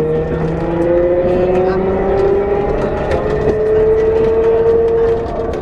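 Translohr rubber-tyred tram's electric traction drive whining, rising steadily in pitch as the tram picks up speed, over a steady rumble of the ride. The whine stops about five seconds in.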